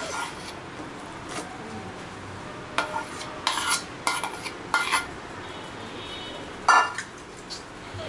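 A steel spoon scraping boiled potato from one stainless steel bowl into another, with a run of short metal-on-metal clinks and one louder clank that rings briefly about two-thirds of the way in.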